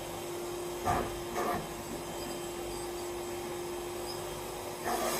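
Vacuum cleaner running steadily on its lowest suction while its nozzle is worked around inside a violin case, with two light knocks about a second in.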